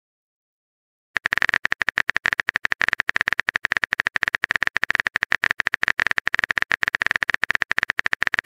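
Phone keyboard typing sound effect: a rapid, even run of short clicks as a message is typed, starting about a second in.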